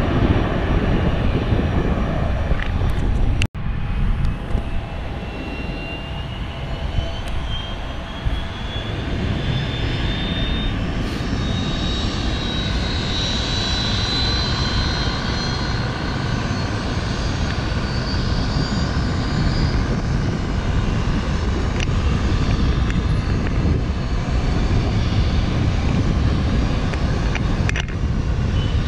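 Jet airliner's engines at taxi power: a steady low rumble with a high whine that rises in pitch over several seconds and then holds. A brief break comes a few seconds in.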